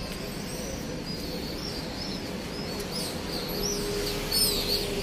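Small birds chirping over and over in quick, high, twittering calls, over steady background noise.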